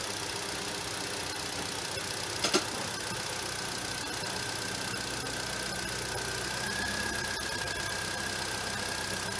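Renault H4M 1.6-litre four-cylinder engine idling steadily on freshly changed oil, started to check the oil change. A short, sharp double click comes about two and a half seconds in.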